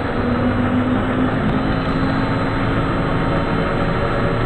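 Cabin noise inside a moving Trolza-5275.06 Optima trolleybus: a steady rumble of running and road noise with a low, even hum over it.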